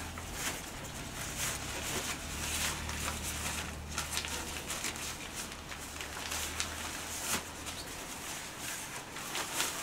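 Synthetic dog raincoat rustling and crinkling as it is pulled onto a fidgeting puppy, with irregular small scuffs and scrapes of handling and movement.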